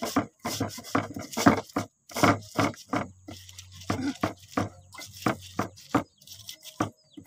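Stone pestle pounding fresh shallots, garlic and chilies in a stone mortar (cobek and ulekan), a rapid uneven run of knocks about three a second with brief pauses.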